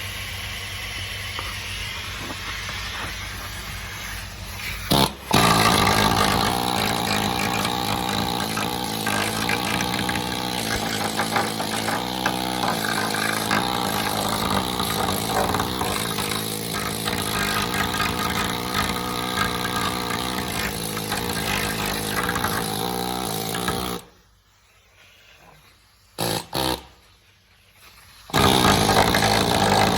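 An engine starts about five seconds in and runs steadily. It cuts out for a few seconds near the end, with one brief burst in the gap, then runs again.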